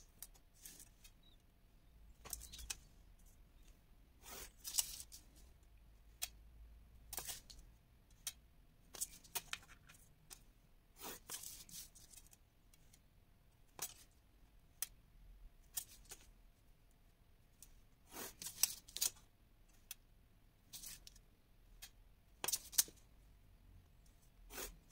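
Pencil marking and drawing lines along a metal ruler on kraft paper over a cutting mat: faint scattered ticks and light clicks of the ruler and pencil, with a few longer scratching strokes.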